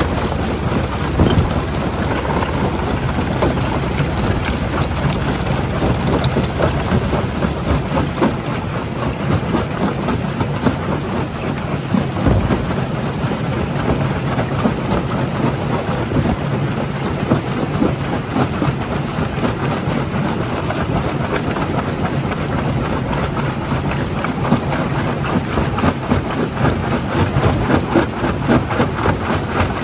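A primary jaw crusher running under load: a steady machine drone with a dense, irregular stream of rock knocking and cracking as stone is crushed.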